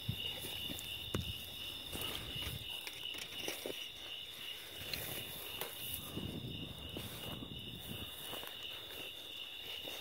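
A steady, finely pulsing high chorus of night insects, with irregular footsteps and rustling through dry grass and brush underneath.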